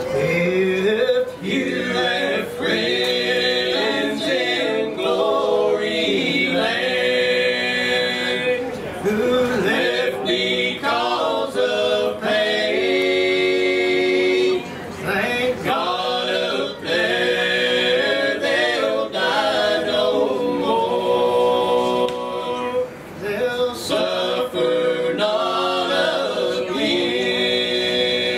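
Male bluegrass gospel quartet singing a cappella in four-part harmony: lead, tenor, baritone and bass voices together, in long held phrases with short breaks between them.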